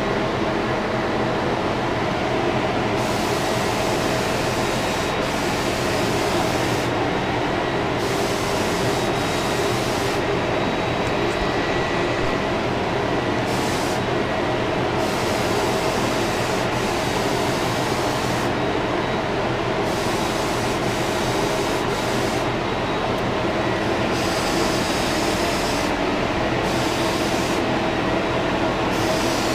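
Compressed-air paint spray gun hissing in repeated passes, on for one to three seconds at a time, about eight times, as the trigger is pulled and released. Under it a steady machine drone.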